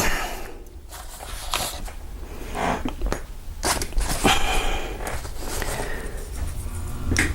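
Scattered small clicks, taps and rustles of lock picks and a Kwikset door knob being handled, as picking tools are swapped out.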